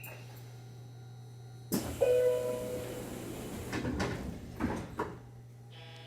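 Train's sliding passenger doors closing: a sudden loud bang about two seconds in with a short ringing tone, then a few more knocks as they shut, over a steady low hum.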